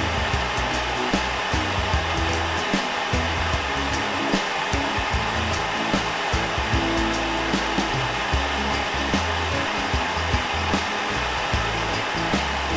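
Propane lampworking torch (Lopet burner on a concentrated flame) burning with a steady hiss, under background music.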